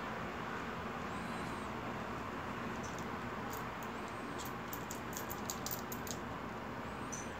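Metal swivel snap hook on a retractable tool tether lanyard clinking as it is handled: a quick run of light, sharp metal clicks in the middle, over a steady background hiss.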